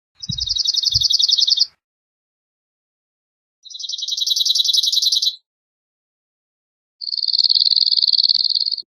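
Cirl bunting singing: three rapid trills of fast repeated notes held on one high pitch, each about a second and a half long, with pauses of about two seconds between.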